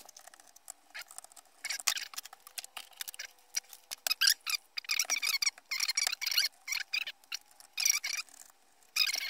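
Small screws being turned out of a solar charge controller's metal case with a hand screwdriver, squeaking in short bursts several times.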